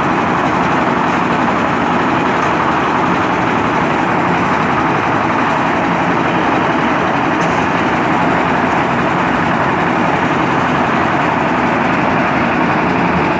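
Concrete mixer running steadily: an even engine noise that holds the same level and pitch throughout.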